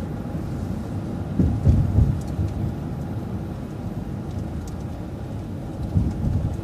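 Transit bus driving, a steady low rumble of engine and road noise heard from inside the bus, with a couple of louder low thumps about one and a half to two seconds in.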